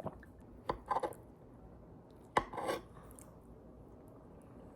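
Utensil clinking and scraping against a dish while food is eaten: three sharp clicks, about a second in and again near the middle, each followed by a brief scrape.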